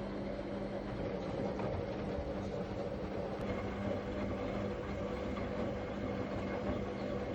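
Bush WMSAE812EB washing machine running, a steady hum with a constant low tone over mechanical noise.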